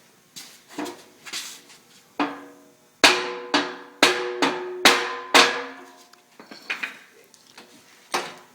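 Metal striking metal as a stair skirt plate is fitted onto a metal stair-pan mock-up: scattered knocks, then a run of about six ringing strikes roughly half a second apart in the middle, then a few more knocks.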